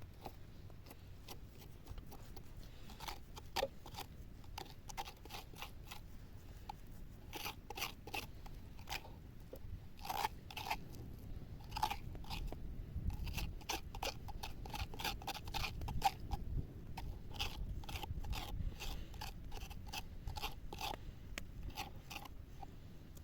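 Irregular crisp crunching and cutting sounds of raw food being worked, many short crackles that grow busier about halfway through.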